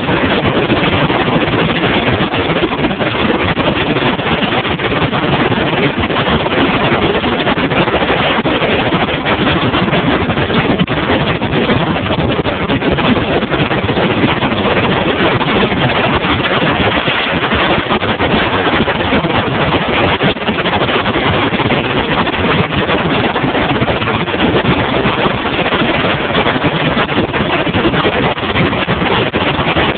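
Steady, loud rush of a bass boat running across open water: outboard engine noise blended with wind buffeting the microphone and water rushing along the hull, unbroken throughout.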